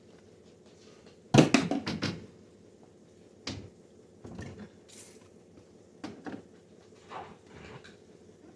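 Bottles and containers being handled in a refrigerator, knocking and clattering. A quick burst of several sharp knocks comes about a second and a half in, followed by scattered single knocks.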